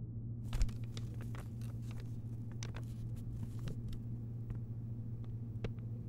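A sheet of drawing paper being handled and rustling in short crackles, dense for the first few seconds and then sparser, over a steady low hum, with a soft thump about half a second in.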